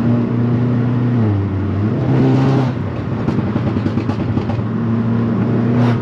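Volkswagen Golf R's turbocharged 2.0-litre four-cylinder engine droning steadily while driving. Its pitch drops about a second in, then rises briefly with a surge of noise before settling back to a steady hum.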